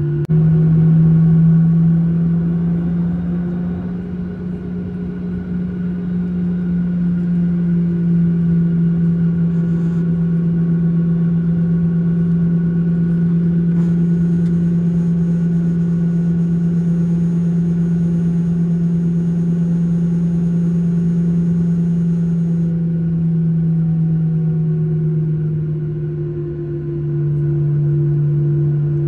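Boeing 737-800's CFM56 engines at taxi power, heard from inside the cabin over the wing: a steady low hum. Its pitch rises slightly about a second in and eases back down near the end.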